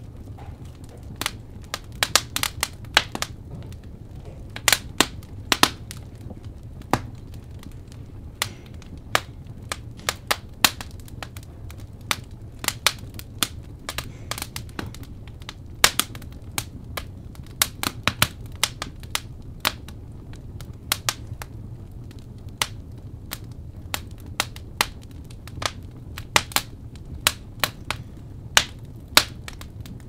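Wood fire crackling: irregular sharp pops and snaps, several a second at times, over a low steady rumble.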